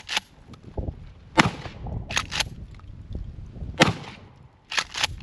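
Remington 870 pump-action shotgun firing, with two loud shots about 1.5 and 4 seconds in, each followed by a short ringing tail. Smaller sharp cracks fall near the start, between the two shots and near the end.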